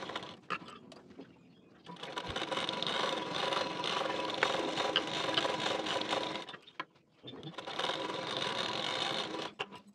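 Sewing machine stitching a seam along the edge of a fabric collar. It runs steadily from about two seconds in for some four seconds, stops briefly, then runs again for about two seconds near the end.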